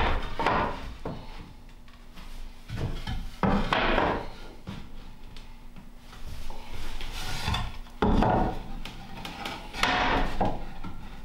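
Wooden bed slats being slid, scraped and knocked against each other and the frame as they are laid out on a wooden floor, in several separate bursts a few seconds apart.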